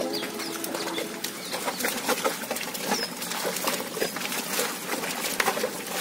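Bullocks' hooves and a ploughman's bare feet squelching and splashing through waterlogged mud as the pair pull a wooden plough, an irregular patter of wet slaps and sucks.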